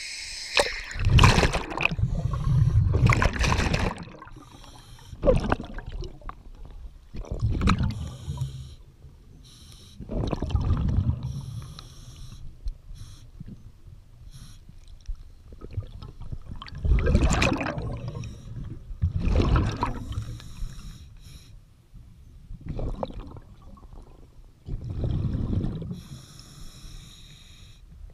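A diver breathing through a scuba regulator. Hissing inhalations alternate with rumbling bursts of exhaled bubbles every two to three seconds.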